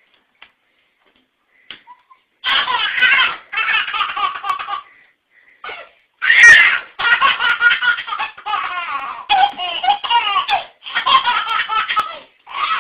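A baby laughing hard in long belly-laugh fits, starting about two and a half seconds in, with short breaks between the bursts.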